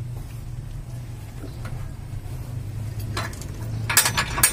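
Knocks and then a burst of rattling clatter near the end as a truck's radiator, being loosened from its mounts, is pulled on and shifted by hand, over a steady low hum.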